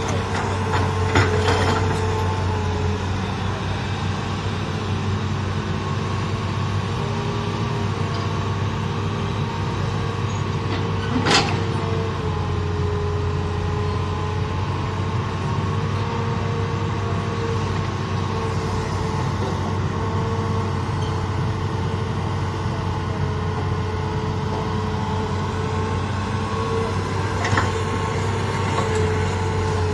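Hydraulic excavator's diesel engine running steadily as it digs and dumps soil. A few short knocks of stony soil and bucket, the sharpest about eleven seconds in.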